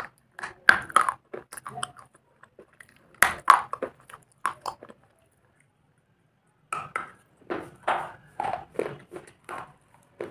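Brittle slate bars bitten and chewed close to the mouth, crunching and cracking. A cluster of crunches comes first, then one loud snapping bite a little after three seconds, a short pause, and steady crunchy chewing from about seven seconds on.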